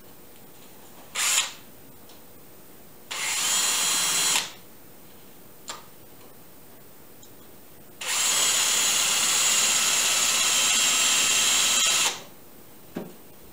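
Cordless drill running into wood in three bursts: a short blip about a second in, a run of just over a second around three seconds in, and a steady run of about four seconds from about eight seconds in.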